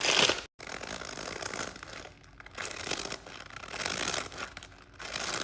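Plastic packaging crinkling and rustling as it is handled and pulled open, in uneven bursts with short pauses, the loudest right at the start.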